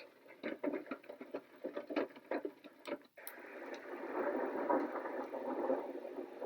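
Sound machine playing its raindrops sound: a string of sharp drip ticks, about four a second. About three seconds in it cuts out briefly with a click as the next sound is selected, and a steady rushing noise begins.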